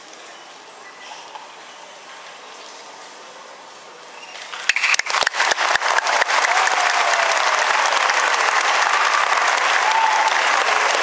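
An audience applauding a choir: a few seconds of hushed hall, then about four and a half seconds in scattered sharp claps that swell quickly into dense, steady applause, with a faint shout or two over it.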